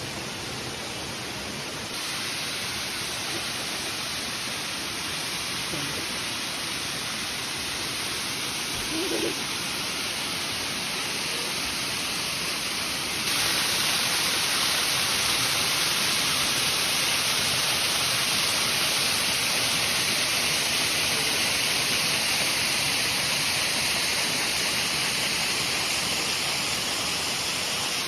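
Waterfall rushing steadily, running full after several days of rain. It jumps louder suddenly twice, about 2 seconds and about 13 seconds in.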